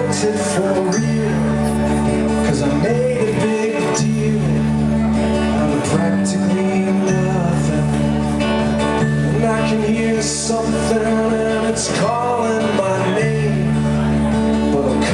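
Live band playing a song on acoustic guitar, electric bass and drums, with sustained bass notes that change every second or two and a melody line that glides in pitch.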